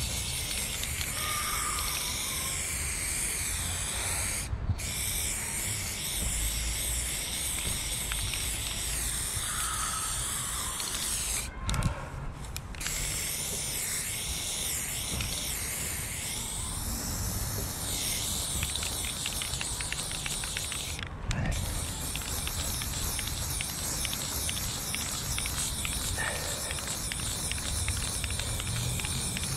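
Aerosol spray-paint can spraying in long continuous passes, a steady hiss that breaks off briefly three times.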